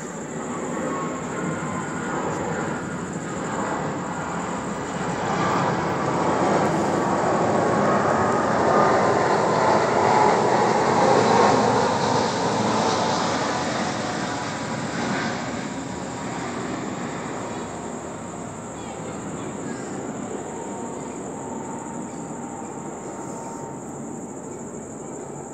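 A broad rushing noise swells to a peak about ten seconds in, with a faint whine in it, then fades away again. Under it runs a constant high-pitched insect trill.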